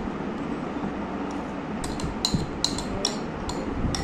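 Kitchen dishes and utensils clinking: a run of light, ringing clinks, mostly in the second half.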